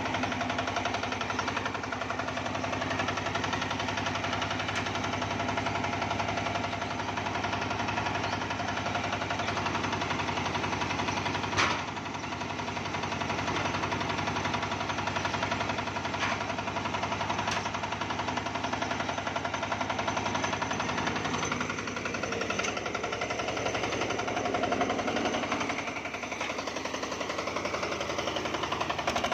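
Matsumoto diesel engine running steadily to drive a homemade sawmill, with one sharp knock about twelve seconds in and a slight shift in its sound in the last third.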